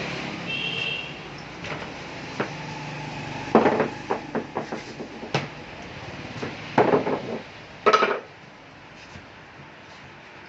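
Metal tools and bike parts being handled: a few clusters of sharp clattering knocks, about a third of the way in and again twice near two-thirds through, over a low background hum.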